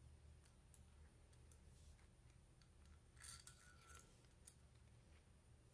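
Near silence: a low hum with a few faint light clicks and a brief scrape a little over three seconds in, like small parts being handled.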